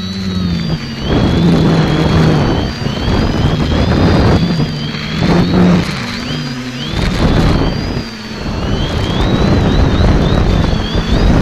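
Electric motors and propellers of a multirotor quadcopter in flight, a whine of several tones that keep rising and falling as the throttle is worked. Gusts of wind on the microphone come and go over it.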